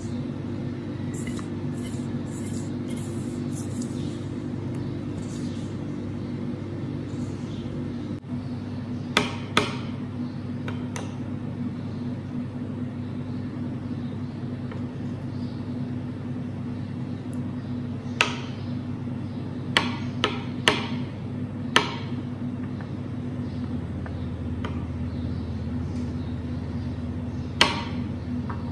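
Metal spoon clinking sharply against a small ceramic bowl while stirring melted chocolate, about nine separate clinks, several close together past the middle, over a steady low hum.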